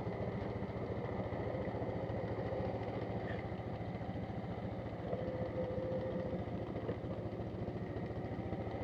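Off-road vehicle's engine idling steadily during a recovery in the mud.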